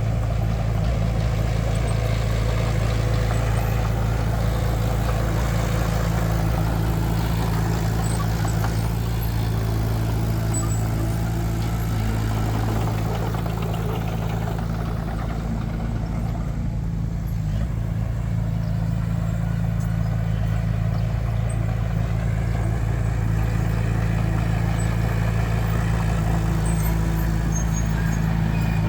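Heavy diesel earthmoving machinery running steadily with a constant low engine hum, dipping slightly about halfway through.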